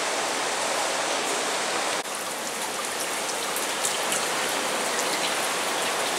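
Water sheeting down a wall fountain and splashing into the basin below: a steady rushing hiss that dips slightly about two seconds in.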